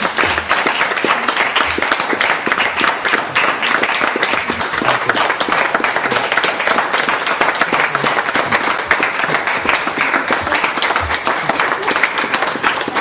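Audience applauding, a steady, dense clapping of many hands.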